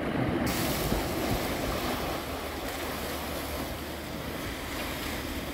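Small sea waves washing and splashing against the boulders of a rock breakwater, a steady hiss that turns brighter about half a second in, with wind on the microphone.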